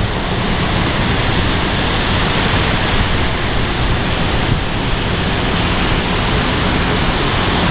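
Steady, loud noise of tropical-storm wind and rain, with the wind buffeting the microphone.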